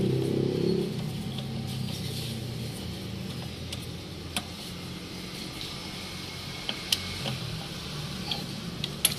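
A few sparse, small metallic clicks from a long Phillips screwdriver working the brake drum's retaining screw, over a steady low background hum that drops away about a second in.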